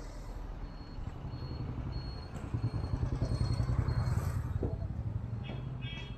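Street traffic: a motor vehicle's engine running close by, its low hum loudest in the middle and then easing off, with a short high-pitched sound near the end.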